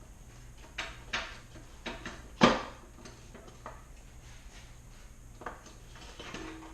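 Metal automatic-transmission parts being handled and set down: a few separate clinks and knocks, the loudest about two and a half seconds in.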